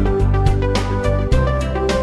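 Background music: a melody of short pitched notes over a sustained bass, with regular note attacks.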